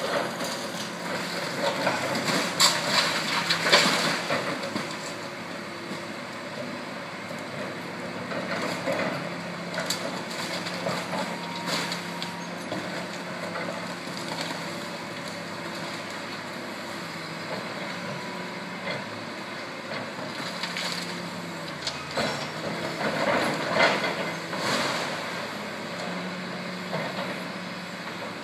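Hydraulic excavator running steadily as it tears down brick walls, with crashing and clattering of falling brick and debris, loudest about three to four seconds in and again around twenty-four seconds.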